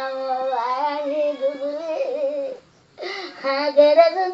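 An elderly woman keening a sung lament in Odia over her dead pet cat. Her voice is drawn out and wavering, in long held notes, with one short break a little past the middle.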